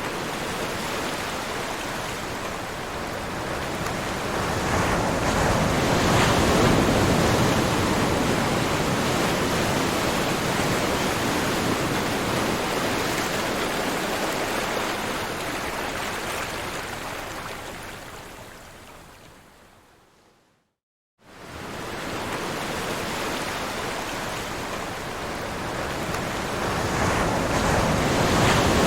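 Ocean waves washing on a shore: a broad hiss that swells up and slowly recedes, cuts to a brief silence about two-thirds of the way through, then starts again and builds.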